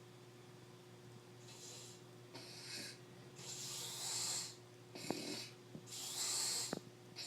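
A sleeping man snoring: a run of hissing breaths, about one a second, that starts after a quiet first second and a half.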